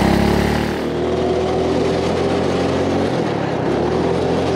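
Predator 212 Ghost small single-cylinder go-kart engine going from idle to full throttle as the kart takes off, then running at a steady high-rpm note as it drives down the track.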